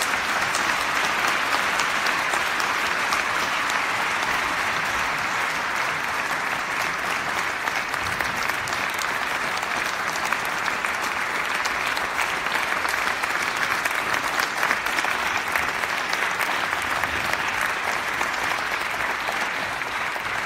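Audience applauding: dense, steady clapping from many people, held for the whole stretch.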